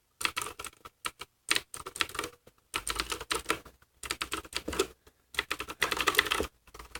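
Typing on a Cooler Master QuickFire mechanical keyboard with clicky Cherry MX Blue switches, keys clacking in irregular bursts with short pauses.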